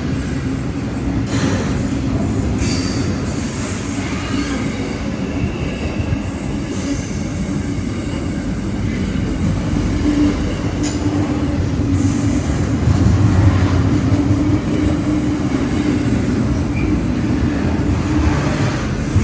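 A long freight train's wagons rolling steadily past on the track, with continuous wheel-on-rail noise.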